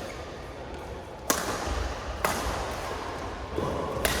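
Badminton rackets striking the shuttlecock in a rally: sharp cracks about a second apart, then another near the end, each followed by a short echo.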